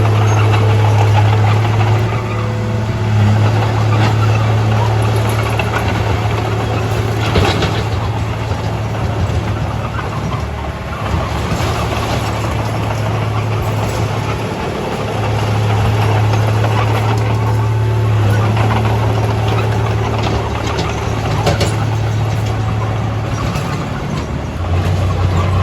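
Heavy diesel engine of earthmoving machinery running under load. Its low hum eases off for a few seconds in the middle and then picks up again, with a few sharp knocks along the way.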